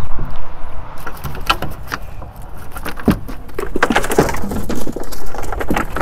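Cast net being hauled onto a boat deck: a dense, irregular run of taps and slaps as the weighted net and wet, flopping fish land on the deck.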